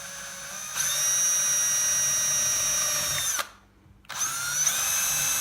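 Electric drill with a 4 mm bit drilling holes through plastic armour: a steady high motor whine that stops a little over three seconds in, then starts again with a rising pitch for the second hole.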